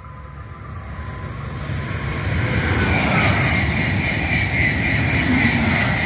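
RENFE AVE Class 100 high-speed electric trainset passing at speed: a rush of wheel, rail and air noise that swells over the first two to three seconds and stays loud, with a steady high whine through the loud part.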